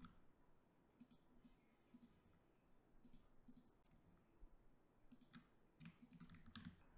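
Faint, scattered clicks of a computer mouse and keyboard over near silence, with several in quick succession near the end.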